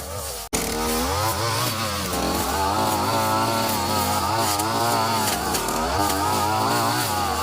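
STIHL FR3001 brushcutter's two-stroke engine running at high speed, its pitch wavering up and down as the line head cuts through overgrown grass. It cuts out for an instant about half a second in, then carries on.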